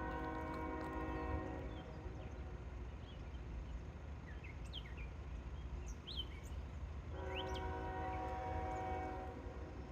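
Train air horn sounding a chord in two long blasts: the first cuts off about two seconds in, the second runs from about seven to nine seconds. Birds chirp between the blasts over a steady low rumble.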